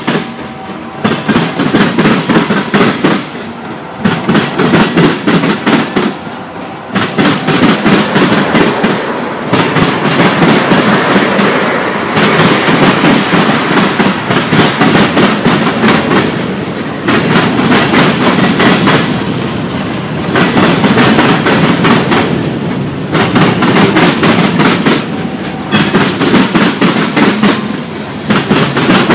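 Freight cars of a Norfolk Southern mixed freight train (gondolas, tank cars and boxcars) rolling past close by. Their steel wheels clatter over the track in loud groups that swell and ease every few seconds as each car goes by.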